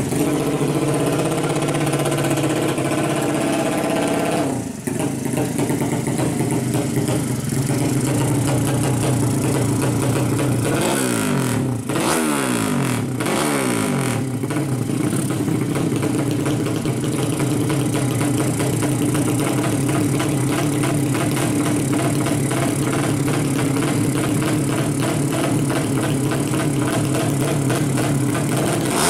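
Single-cylinder four-stroke engine of a Yamaha Jupiter-based 185 cc drag bike, idling steadily, with a few quick throttle blips that rise and fall in pitch about halfway through.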